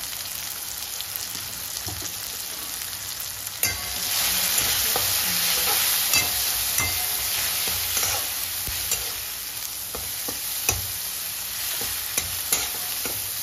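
Beans frying in hot oil in a pan, sizzling steadily while being stirred, with scattered sharp clicks of the spatula against the pan. The sizzle grows louder about four seconds in.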